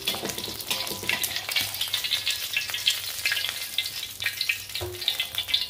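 An egg frying in a thin layer of hot garlic-infused oil in a steel wok, sizzling with dense, rapid crackles. A metal spatula scrapes across the wok as the egg is lifted out.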